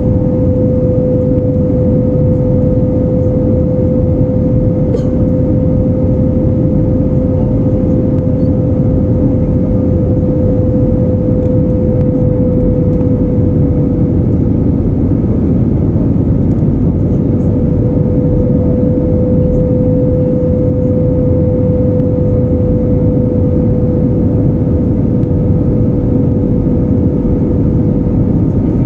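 Jet airliner in flight heard from inside the passenger cabin: the steady, even rush of engines and airflow, with a constant mid-pitched hum running through it.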